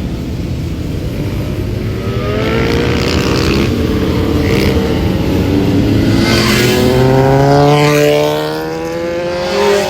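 Motor vehicle engine accelerating, its pitch climbing steadily over several seconds. It eases off briefly about eight and a half seconds in, then climbs again.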